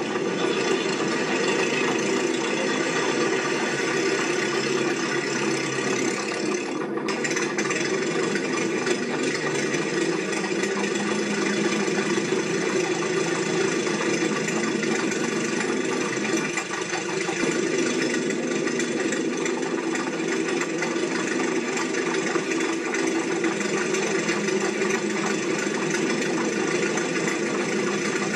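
A steady, unchanging mechanical drone made of many held tones, like a running engine, with no separate knocks or calls standing out.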